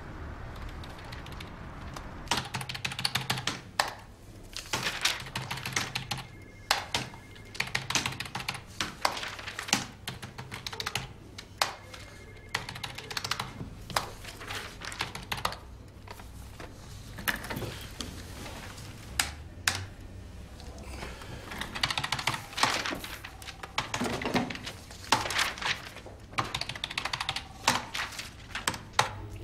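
Typing on a computer keyboard: quick runs of key clicks in bursts of a second or two, separated by short pauses, over a low steady hum.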